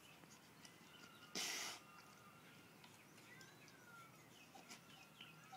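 Husky nosing in a water dish for floating food bits: one short, loud burst of noise about a second and a half in, against near silence with a few faint high chirps.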